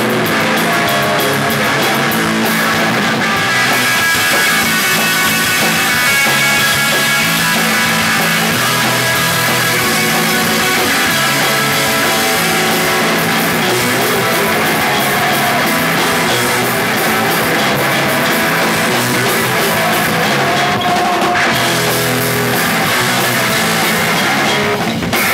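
Rock band playing live: loud electric guitar over a drum kit, dense and continuous.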